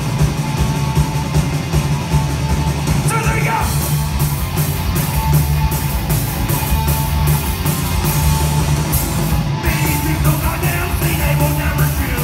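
Live rock band playing loud, with distorted electric guitars, bass and a steady driving drum beat. A singer's shouted voice comes in about three seconds in and again near the end.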